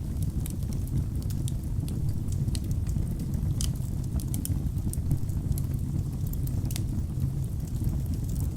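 Wood fire burning in a fireplace: a steady low rumble of flames with frequent sharp crackles and pops from the logs, two louder pops about three and a half and seven seconds in.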